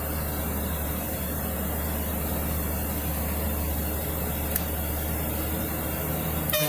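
A bus's diesel engine drones steadily while climbing, heard from inside the cabin. A single click comes about four and a half seconds in, and a horn starts to sound right at the end.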